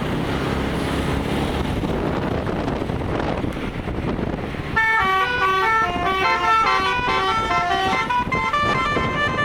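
A vehicle's engine running with a dense, steady noise. About five seconds in, a basuri telolet horn starts playing a fast melody of short notes that jump in pitch, several sounding together.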